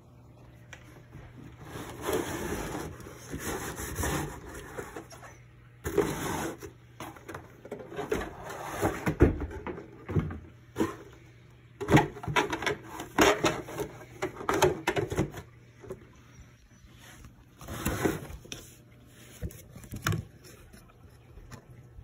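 Cardboard box and plastic packaging being handled during an unboxing, with irregular rustling and scraping in bursts separated by short pauses, the RC car body rubbing against the cardboard.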